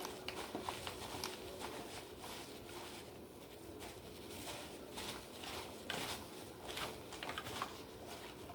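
Soft rustling and patting of paper towels drying freshly rinsed vegetables, with scattered light clicks and taps.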